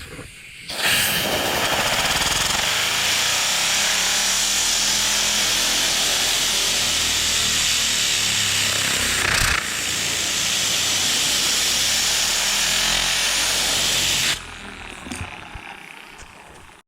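Dual action polisher with a wool pad running steadily, cutting oxidized paint with compound, starting about a second in, with a short break in the middle, and stopping about two seconds before the end.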